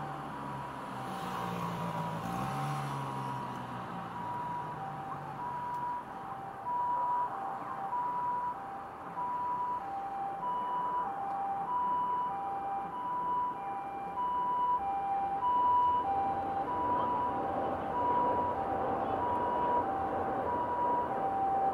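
Japanese ambulance siren: a high and a low tone in turn, each about half a second long, growing louder as it approaches, over steady road traffic. A vehicle engine drone and tyre noise pass in the first few seconds.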